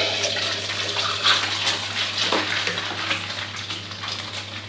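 A duck egg dropped into very hot oil in a stainless steel wok, sizzling loudly the moment it hits the oil and easing off slightly toward the end. The oil is hot enough to puff and crisp the egg white.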